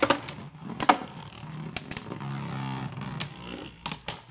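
Spriggan Requiem and Genesis Valtryek Beyblade Burst tops spinning in a plastic stadium and striking each other, with several sharp clacks spaced about a second apart and a quick cluster of hits near the end.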